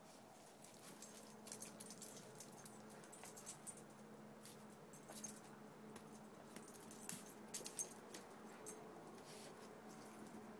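Faint, irregular jingling of dog collar tags with scuffling on concrete, as a Doberman and a small pug-type dog wrestle in play; the sharpest clinks come about five seconds in and again around seven to eight seconds.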